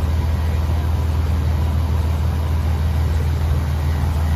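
Ferry engine running with a steady, deep, even hum.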